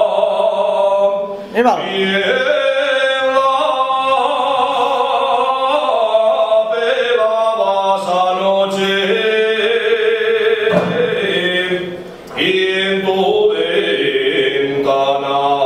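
A man singing solo and unaccompanied, in long held notes that bend and waver in pitch, pausing for breath about a second and a half in and again about eleven seconds in.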